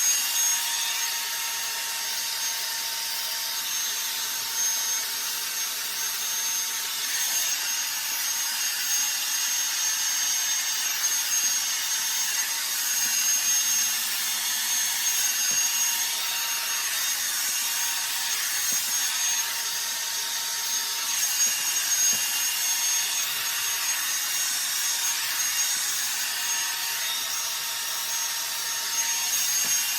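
Revlon One-Step hair dryer brush running steadily: the rush of blown air with a steady high whine from its motor.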